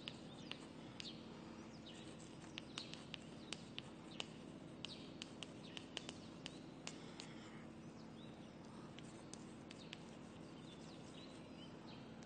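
Chalk writing on a blackboard: faint quick taps and scratches of the chalk stick as words are written, thinning out after about seven seconds. A low steady hum lies under it.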